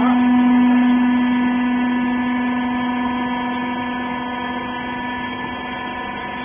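Hydraulic rag baler's electric motor and hydraulic pump running, a loud steady hum with one strong low tone that drops away near the end.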